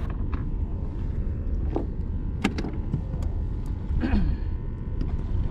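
Fishing boat's engine running with a steady low rumble, with several sharp knocks now and then.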